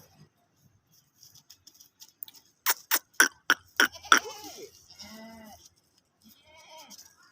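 A quick run of five sharp clicks, the loudest sounds here, followed by a goat bleating two or three times, the first bleat falling in pitch.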